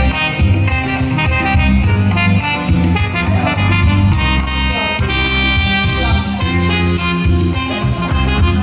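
Music played back through a Kenwood A45 stereo system, with a heavy bass line under steady instrumental parts.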